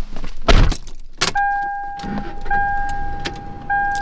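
A heavy thump, as of a vehicle door shutting, and a second knock inside the cab, then the truck's warning chime: a steady electronic tone that sounds three times in a row, each lasting about a second.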